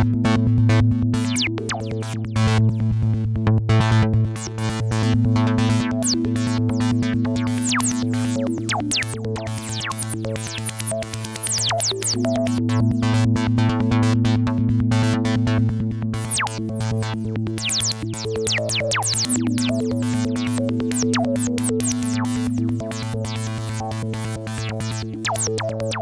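Minimal experimental techno played live on a groovebox sampler and a MIDI keyboard synth. A steady synth bass drone sits under a held synth note that repeats about every three to four seconds. Short falling high-pitched synth glides sweep over the top.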